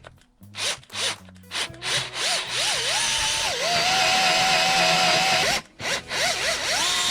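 Power drill with an 8.3 mm bit drilling out a stripped 8 mm bolt thread to take a Helicoil insert. The motor blips a few times, winds up and runs steadily, stops briefly before the end, then starts again and keeps running.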